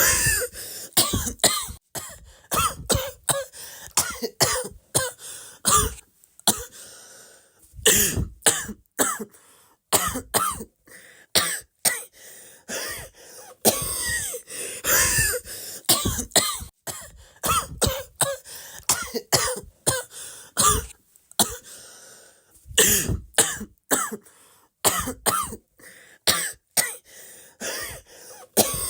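Repeated short coughs in quick runs, separated by a few brief pauses.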